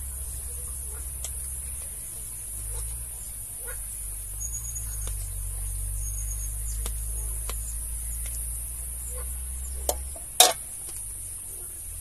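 A metal spoon scraping and tapping cooked rice out of a plastic colander into a metal pot: scattered light clicks, then two sharp knocks about ten seconds in, the second the loudest. A steady high hiss runs underneath.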